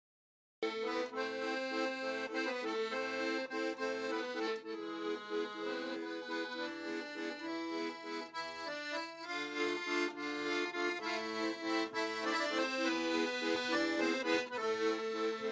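Piano accordion playing a traditional folk tune in sustained chords and melody, coming in suddenly after a moment of silence about half a second in.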